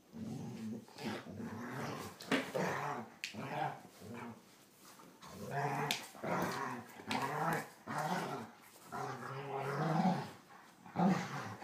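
Two German Shorthaired Pointers play-fighting, growling in repeated bouts of a second or two, with a short lull about four seconds in.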